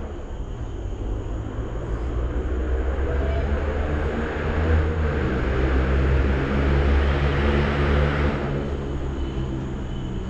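Loud, low engine rumble with a steady hum, swelling over several seconds and falling away about eight seconds in.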